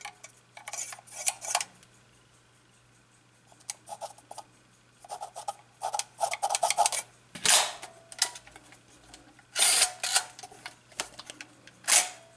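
Kiev 60 medium-format SLR body being handled, with a marker pen working in its mirror box: runs of small clicks and rattles, then three louder sharp mechanical clacks, each with a short metallic ring, about halfway through, two seconds later and near the end.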